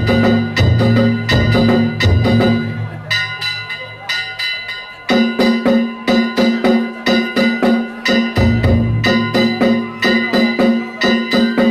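Danjiri festival music (danjiri-bayashi): small kane gongs struck in a rapid, steady rhythm with a ringing metallic tone, over taiko drums. The deep drum drops out about three seconds in, the playing thins for a moment, and the big drum comes back near the end.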